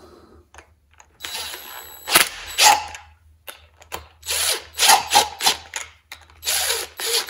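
Cordless power driver spinning a socket on the nuts of a homemade three-jaw puller, in three short runs with brief pauses between. The puller is drawing a tight part out of an outboard's gear housing.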